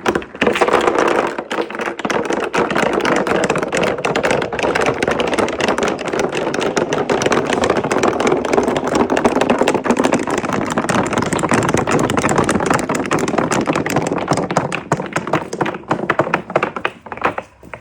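Many marbles rolling and clattering down the slopes of a marble run: a dense stream of rapid clicks over a steady rolling rumble, thinning to scattered clicks near the end.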